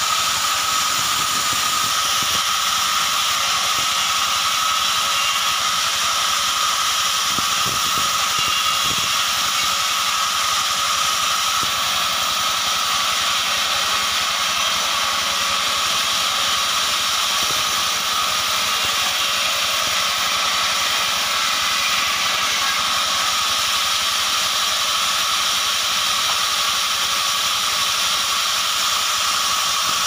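Vertical bandsaw sawmill running and sawing short logs as they are pushed through the blade: a steady high whine with a constant hiss.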